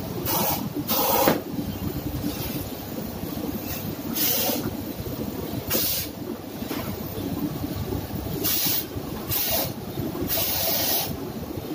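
Gas torch flame running with a steady low rumble while heating a washer machine's bearing housing to free the bearing, with about seven short bursts of hiss.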